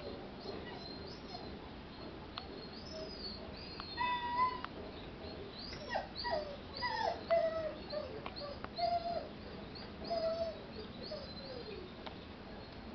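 Puppies whimpering and yipping while they play-fight, a series of short, high whines that come thickest in the middle stretch.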